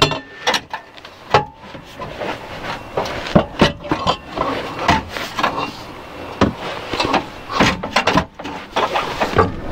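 Irregular knocks, clanks and scrapes of a steel exhaust backbox silencer being twisted and pushed up over the rear axle of a Vauxhall Corsa D, the metal bumping against the car's underbody.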